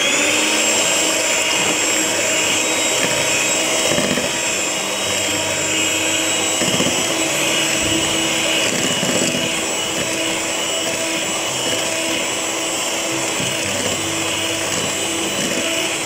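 Electric hand mixer running steadily at speed, its twin wire beaters whisking an egg into creamed butter and sugar. The motor whine starts abruptly as it is switched on.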